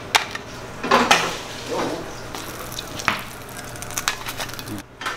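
A pan of red birria fat sizzling steadily, with several sharp metal clinks as tongs set fried tacos into stainless taco holders on a sheet tray.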